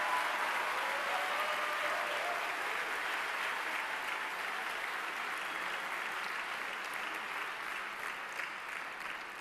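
Large audience applauding, slowly fading toward the end.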